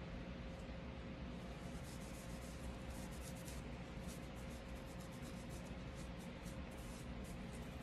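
A cloth wiping the steel slide of a Smith & Wesson M&P Shield Plus pistol: a run of quick, faint rubbing strokes, most of them from about two seconds in, over a steady low hum.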